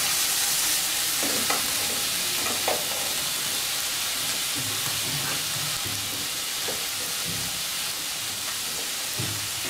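Onion and tomato sizzling steadily in hot oil in a frying pan.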